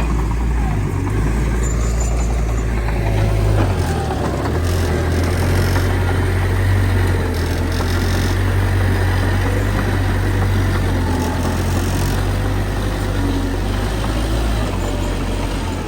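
Bulldozer's diesel engine running with a loud, steady, deep rumble; its low note shifts about four seconds in.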